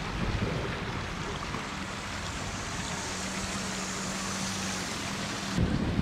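Steady outdoor wind noise with a faint low hum through the middle. Near the end it switches abruptly to rougher, gusty wind buffeting on the microphone.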